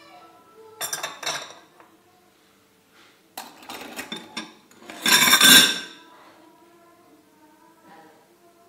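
Metal mesh flour sieve tapped and jostled against a glass mixing bowl while sifting flour: clinking, clattering bursts about one second in and around four seconds in. The loudest clatter comes about five seconds in.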